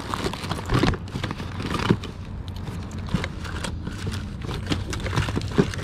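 Hands rummaging through a plastic tote packed with cords, papers and small objects: scattered scrapes, rustles and clicks as things are shifted, over a steady low hum.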